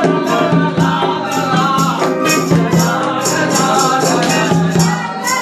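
A song, with a man singing over a rattling hand percussion that keeps a steady beat of about two to three strokes a second.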